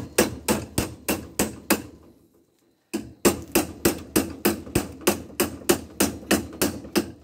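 Hammer blows on a metal pipe clamped in a bench vise, struck about three times a second to beat the pipe into a bend. Each blow is a sharp metallic strike with a short ring. The blows pause for about a second partway through, then carry on at the same pace.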